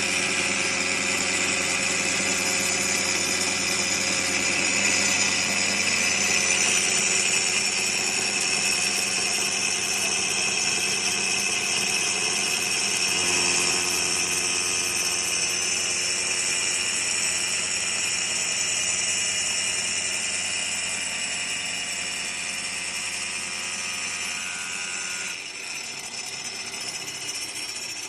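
XINKAI Z2 DZ stone-cutting saw running steadily with a high, continuous whine as its blade feeds automatically through granite. The tone shifts slightly about halfway through and eases a little near the end.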